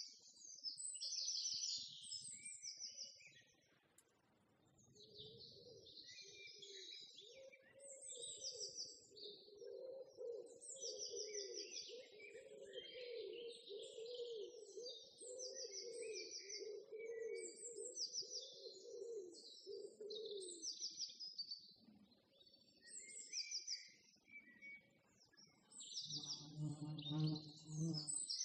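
Small songbirds chirping and trilling over and over in short high phrases. Underneath, a lower wavering sound runs through the middle, and there is a brief low sound near the end.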